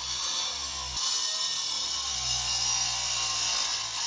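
Milwaukee M18 9-inch cordless angle grinder running and cutting, a steady high hiss over a low hum.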